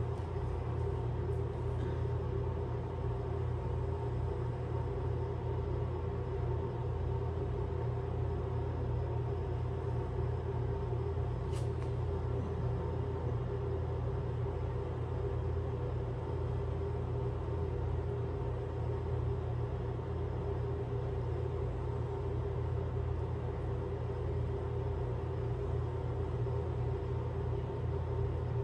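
Steady low mechanical hum with a constant drone that never changes, with one faint tick about twelve seconds in.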